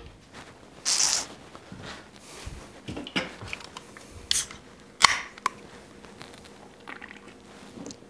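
An aluminium beer can being handled in a small room: a brief hiss about a second in, then a few scattered sharp clicks and light taps.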